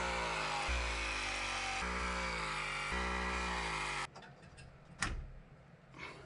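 Vevor SL1930 battery mini press tool running a press cycle on a copper press fitting: a steady motor whine that sags in pitch as the jaws close, then stops abruptly about four seconds in. A sharp click follows about a second later.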